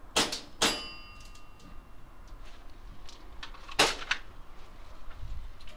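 Airsoft gun shots: two sharp cracks less than half a second apart, the second followed by a brief metallic ring, then a single crack about three seconds later, with fainter clicks around it.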